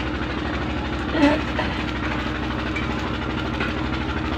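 Stationary diesel engine, the 'Peter' engine that drives a farm tube well, running steadily with an even rapid beat.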